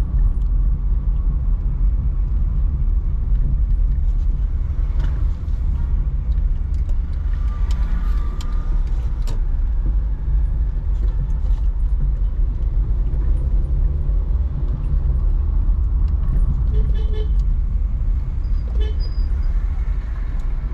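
Steady low rumble of a car being driven: engine and road noise. A brief higher-pitched tone sounds about eight seconds in.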